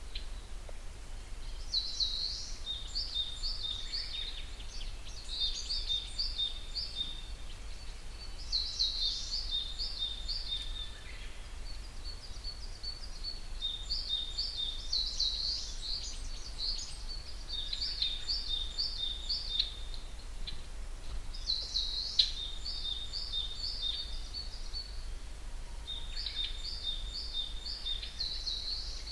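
Wild songbird singing short phrases of quick repeated high notes, each phrase a second or two long, coming every few seconds, over a low steady rumble.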